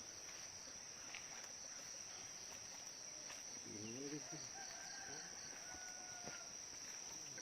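Chickens: a short wavering cluck-like call about four seconds in, then a rooster crowing faintly in the distance for a second and a half or so. A steady high insect trill runs underneath.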